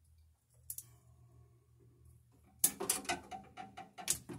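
Wire strippers worked on a 10-gauge copper wire at a subpanel: a quick run of sharp clicks and snips in the second half, over a faint low hum.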